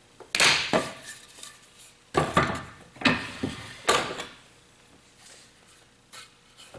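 Clamps being undone and a wooden sacrificial fence taken off a table saw's rip fence: a series of clanks and wooden knocks, thinning out after about four seconds into light handling noise. The saw is not running.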